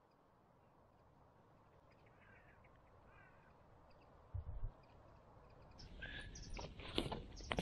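Crows cawing twice, faint, over quiet open-country ambience. About four seconds in come two low thuds, and near the end a run of rustles and sharp clicks.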